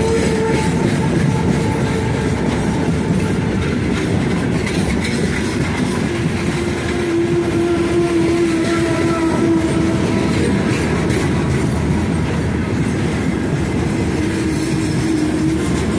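Heavy freight train of open gondola wagons rolling past at close range: a steady rumble and clatter of wheels over the rail joints, with a drawn-out whine in the middle and again near the end.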